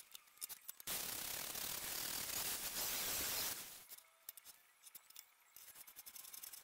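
Angle grinder with a flap disc grinding steel, an even hiss from about a second in to past the middle. Then steel parts clicking and rubbing as the lathe carriage plate is set and slid by hand on its ways.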